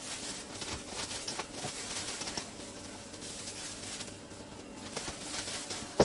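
Wet squishing and rustling as plastic-gloved hands mix napa cabbage with red chili kimchi paste in a stainless steel bowl, with a sharp knock near the end.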